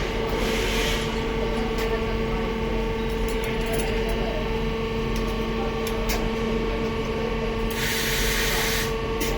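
Laser welding machine running with a steady electrical hum, with a short hiss about eight seconds in and a weaker one near the start.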